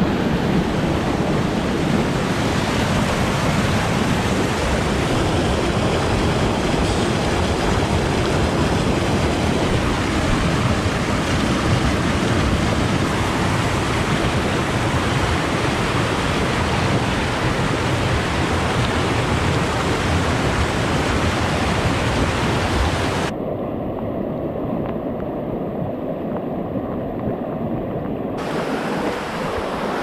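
Loud, steady rush of a mountain stream in spate, running high after a typhoon. About 23 seconds in the rush turns duller and quieter for about five seconds, then returns in full.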